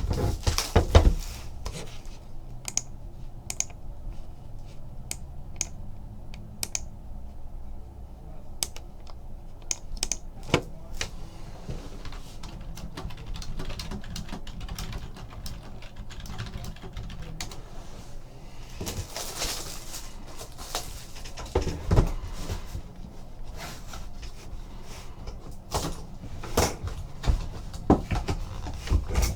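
A sealed trading-card box being opened and its packs handled: scattered sharp clicks and taps, with longer rustling tears about 19 seconds in and again near the end.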